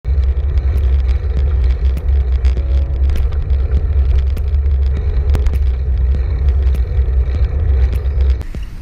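Wind buffeting the microphone of a bicycle-mounted GoPro while riding, a steady low rumble with road noise and small rattling clicks from the bike rolling over the asphalt path. It drops away suddenly shortly before the end.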